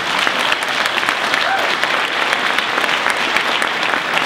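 Large audience applauding steadily, a dense crackle of many hands clapping.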